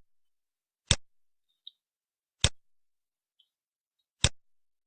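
Computer mouse button clicked three times, each a single sharp click about a second and a half apart.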